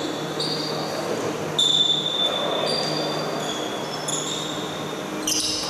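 Basketball shoes squeaking on a hardwood court: a string of short high squeaks at shifting pitches, the loudest about a second and a half in, over the low hum of a large sports hall.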